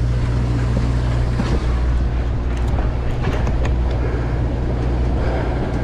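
Sportfishing boat's engine running with a steady low hum, over a constant wash of water and wind noise, with a few faint clicks partway through.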